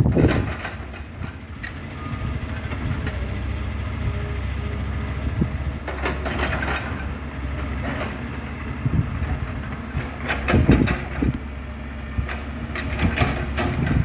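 Diesel engine of a Komatsu PC200 hydraulic excavator running steadily as it digs soil. A few brief louder noises break through around the middle and near the end.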